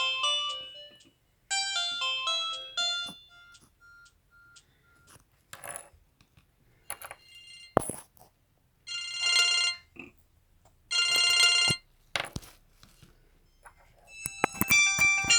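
Samsung SGH-C270 mobile phone playing its ringtones one after another: short electronic melodies, a single beep repeated several times, and two bursts of buzzy ringing, with brief gaps and a few clicks between them. A new melody starts near the end.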